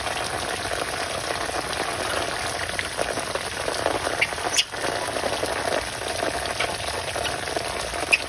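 Heavy rain pouring steadily onto leaves, bamboo and waterlogged ground, with a brief drop in level about halfway through.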